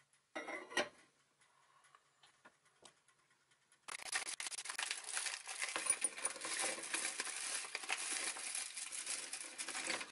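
A ceramic bowl set on a metal saucepan with a short clunk. About four seconds in, a steady crinkling and tearing of a chocolate bar's foil and paper wrapper being opened, with the chocolate pieces shaken out into the bowl.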